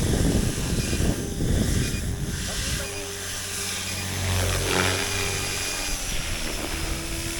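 WARP 360 radio-controlled helicopter flying, its rotor hum changing pitch as it manoeuvres, with strong wind buffeting the microphone in the first second or two.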